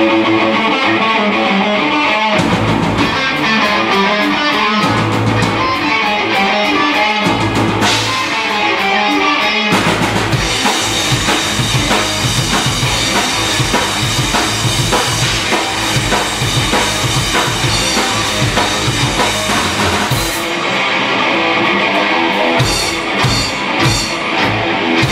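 Live rock band playing electric guitars, electric bass and a drum kit through stage amplifiers. About ten seconds in the band comes in fuller with denser drumming, and near the end there is a short break of a few sharp accented hits before the full band resumes.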